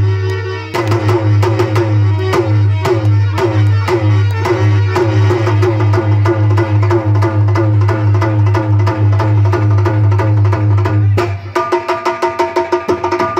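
Live dholak drumming in a fast, even rhythm, the bass head's pitch bending on each stroke, over a steady low drone. About eleven seconds in it changes to quicker, lighter strokes under steady held notes.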